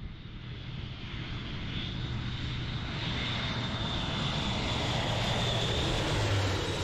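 Airbus A400M's four turboprop engines running steadily, with a low hum and a high whine, growing gradually louder.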